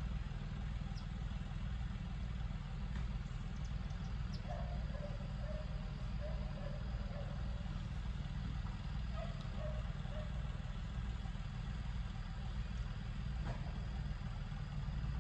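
Tractor engine idling steadily, a low, even engine sound.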